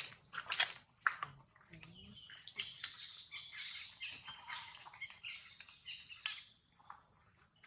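Outdoor ambience: short chirps and squeaks over a steady high drone, with a few sharp clicks and rustles of dry leaves and twigs as the monkeys move about.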